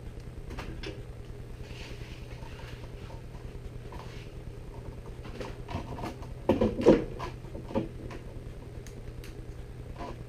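Handling of kangaroo-leather lace strands held taut from a bench vise: faint rustling and small clicks, with a few sharper knocks about six and a half to seven seconds in, over a steady low hum.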